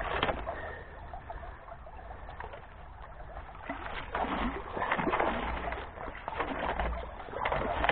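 A magnet-tipped stick swished and dragged through shallow creek water over gravel, splashing. A few low, wavering voice-like calls sound in the second half.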